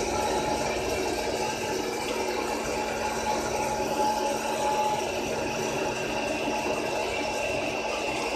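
Rowe Silver Screen popcorn vending machine running its popping cycle: a steady mechanical hum and whir with a constant low tone. The corn is heating and has not yet started to pop.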